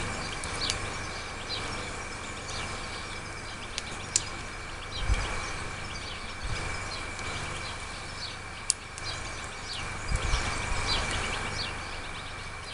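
Small birds chirping on and off in the background, over a steady thin high whine, with a couple of low bumps about five and ten seconds in.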